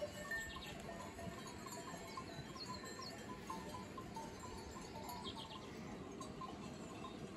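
Bells on a grazing flock of sheep tinkling lightly and irregularly, with a few brighter clinks.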